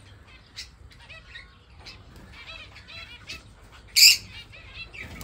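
A flock of small caged birds, lovebirds among them, chirping busily with many short, quick calls. One loud, shrill shriek stands out about four seconds in.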